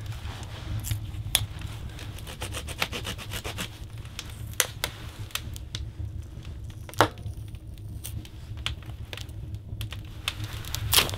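Pocket knife whittling a small wooden stick: a run of short, irregular scraping cuts as the blade shaves the wood, with a few sharper strokes.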